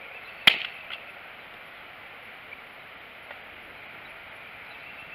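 Small kindling fire catching in a cinder-block pit: a sharp snap about half a second in, a smaller one just after, and a couple of faint ticks over a steady hiss.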